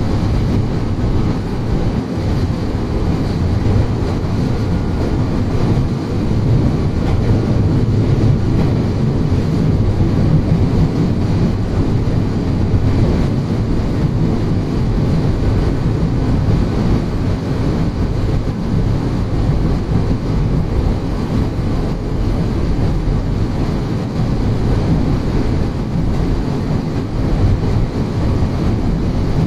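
Kobe Electric Railway commuter train running, heard inside the car: a steady, loud rumble of wheels on rail and running gear.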